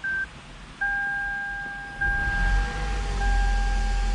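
2008 Toyota Camry Hybrid switched on: a short dashboard beep, then a steady electronic chime tone that dips briefly about every second. From about two seconds in, a low running hum of the car's machinery rises underneath.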